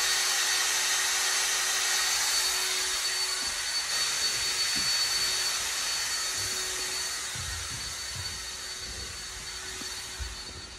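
Cordless drill running steadily as it winds in a string, a motor whine over a steady hiss that slowly fades. Low knocks and bumps join in from about seven seconds in.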